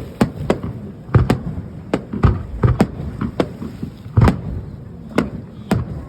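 Fireworks going off in a quick, uneven volley: a dozen or so sharp bangs, roughly two a second, each with a short echoing tail. The loudest comes about four seconds in.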